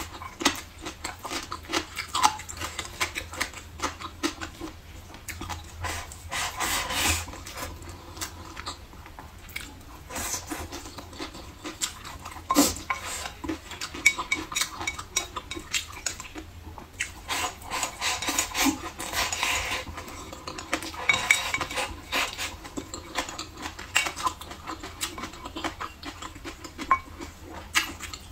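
Close-miked eating: wooden chopsticks clicking and scraping against a ceramic bowl, mixed with chewing of braised pork ribs and green peppers. Frequent sharp clicks throughout, with a few longer, louder stretches of eating noise.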